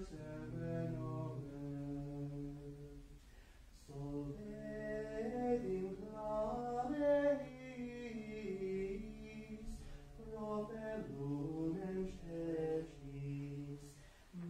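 Unaccompanied plainchant of the Vespers office, sung by a low male voice. A phrase breaks off about four seconds in, then a longer phrase moves up and down in pitch and dips again near the end.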